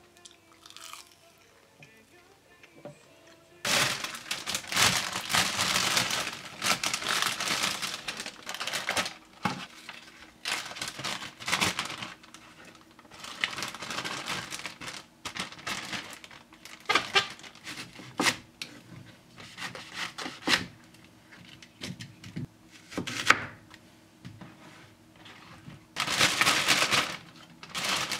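Plastic zipper bag crinkling and rustling in irregular bursts as it is handled and filled with cut green onions. A few sharp clicks come among the rustles. It starts about four seconds in, after a quiet opening.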